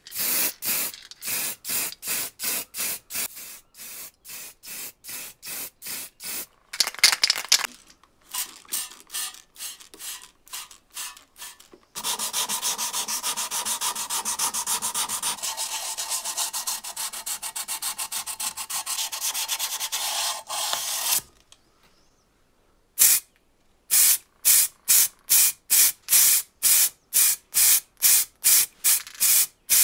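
Short, quickly repeated hisses of an aerosol spray can laying primer on a metal lamp housing. These give way to wet sanding of the painted metal with sandpaper: strokes, then about nine seconds of continuous rubbing. After a brief pause, quick spray bursts of a colour coat return near the end.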